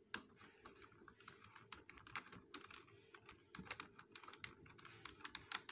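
Faint, irregular clicking of computer keyboard keys as a name is typed in.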